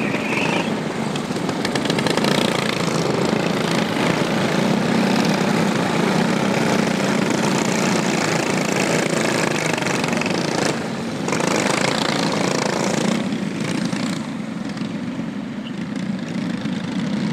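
Go-kart engines running on a race track, a steady buzz of several small engines at speed. It briefly drops about 11 seconds in, and eases off again for a couple of seconds near the end.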